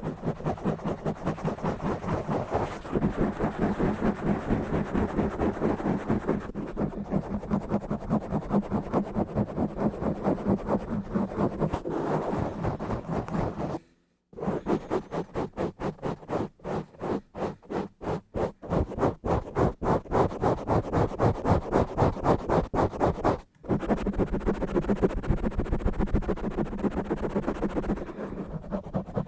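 Fast, rough scratching on the camera, picked up right at the microphone: rapid rhythmic strokes, several a second. The scratching breaks off briefly about halfway through and once more later.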